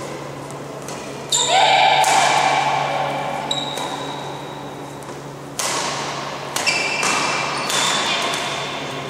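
A badminton rally: rackets strike the shuttlecock again and again with sharp, echoing hits, about eight in all, the loudest about a second in, among high squeaks of court shoes on the sports-hall floor.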